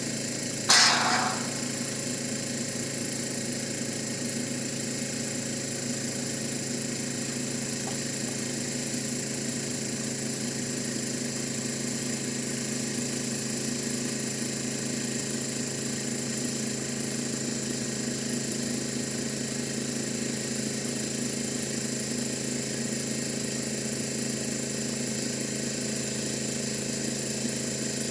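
Repaired air compressor running steadily as it pumps back up toward its 175 psi cut-out, with a short, sharp burst of hissing noise about a second in.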